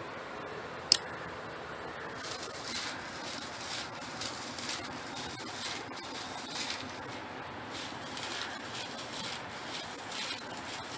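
Dry coconut-rib broom sticks rustling and coir rope rasping as the rope is wound tight around the broom's head, in an irregular run of short rustles. A single sharp click about a second in.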